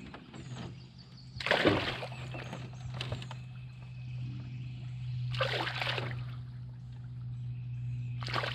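A hooked fish thrashing and splashing at the surface beside the boat, in three bursts, the loudest about a second and a half in, throwing water on the angler.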